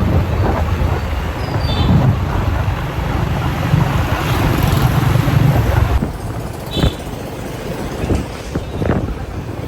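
Street traffic: engines running with a low rumble, and a few short high beeps. The sound changes abruptly about six seconds in.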